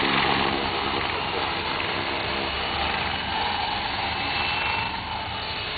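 50-size electric RC helicopter flying low, its rotor and electric motor running steadily with a faint whine under a rushing noise, with wind buffeting the microphone.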